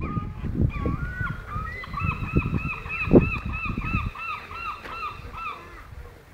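Llama giving its alarm call: a rapid run of about a dozen short, rising-and-falling high calls, roughly three a second, with low rustling and a thump about three seconds in.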